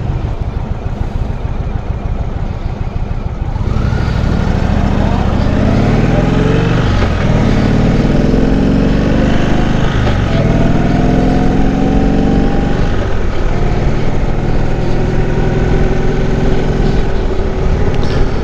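Indian Chief Vintage motorcycle's V-twin engine ticking over at a standstill, then pulling away hard about four seconds in. It revs up through the gears, the pitch climbing and dropping back at each of three upshifts, and then settles to a steady run.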